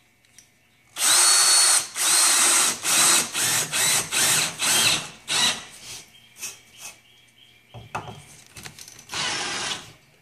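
Power drill driving a screw through cement backer board into plywood: one long run of the motor about a second in with a rising whine, then a string of short trigger pulses as the screw is snugged flush with the board, and another short run near the end.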